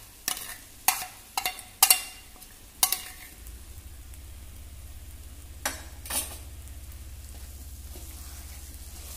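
A steel spoon knocking and scraping against a steel bowl, several sharp clicks in the first three seconds, as onion-coconut paste is dropped into a clay pot. Then a wooden spatula stirs the paste into the masala frying in oil, with two more knocks around six seconds in, over a low steady hum that starts about three and a half seconds in.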